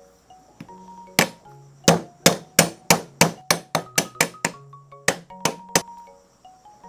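A steel cleaver chopping lemongrass stalks on a thick wooden chopping board: a quick run of about a dozen sharp chops, a short pause, then three more. Quiet background music plays underneath.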